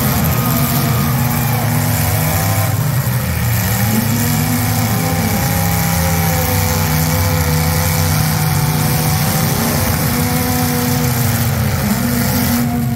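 Several demolition derby cars' V8 engines running at once, revving up and down in overlapping pitches.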